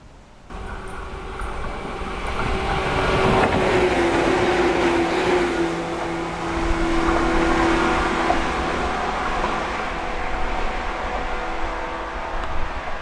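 Shinano Railway 115-series electric train passing close by: a loud steady rumble of wheels on rail with a motor hum that dips slightly in pitch about four seconds in. The sound starts abruptly about half a second in.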